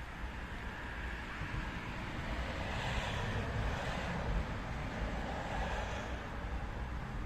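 Street traffic and wind on the microphone: a steady low rumble that swells for a few seconds in the middle as a vehicle passes, then eases back.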